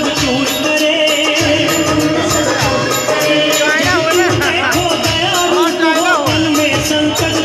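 Loud devotional music for a Durga Puja aarti: drums and jingling, rattle-like percussion over a steady held tone, with a wavering sung or played melody line about halfway through.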